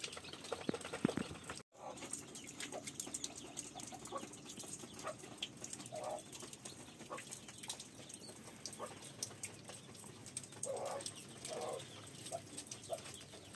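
A few short bird calls, several of them near the end, over a steady scatter of faint ticks and clicks. The sound drops out completely for a moment about two seconds in.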